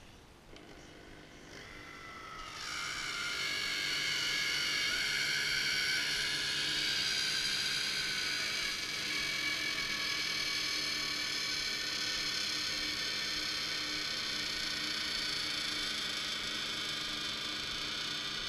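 REMS electric pipe bender's geared motor running under load as it bends an aluminium tube round its former: a whirring gear whine that starts about half a second in, builds up over the next couple of seconds, then holds steady.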